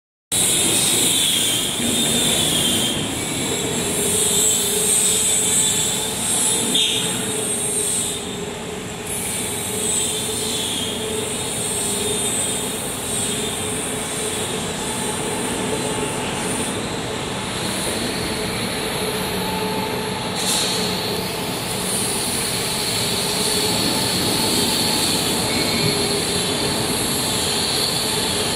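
Steady machinery noise in a factory workshop: a continuous mechanical drone with faint high-pitched whines over it.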